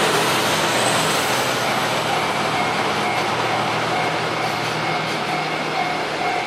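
JR Freight DF200 diesel-electric locomotive passing with its engine humming, the hum fading about five seconds in as it moves off. Container wagons then roll by with steady wheel-on-rail noise.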